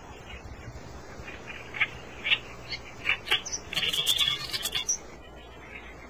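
Oriental reed warblers calling at the nest: short, separate chirps for the first three seconds or so, then a dense burst of high chattering, the loudest part, lasting about a second and stopping about five seconds in.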